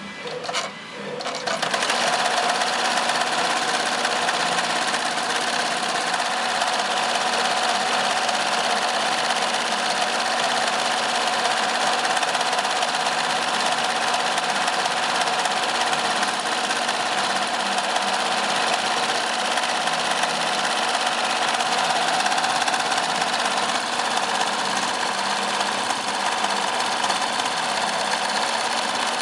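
A 2005 Amaya single-head, 16-needle commercial embroidery machine stitching. After an uneven, quieter first second or so, it settles into a steady, rapid run of stitching that keeps an even level for the rest of the time.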